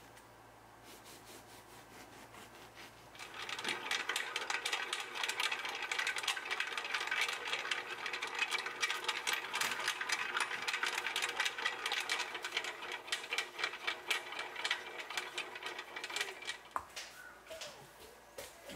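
Bread machine kneading bread dough as butter is worked in: the motor turning and the dough slapping and rattling in the metal pan, a dense run of small knocks starting about three seconds in and stopping near the end.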